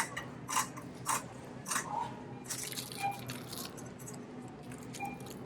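Shopping cart clunking rhythmically as it is pushed, about two clunks a second, like a train running over rail joints. The clunks stop about two seconds in, leaving softer, irregular noise.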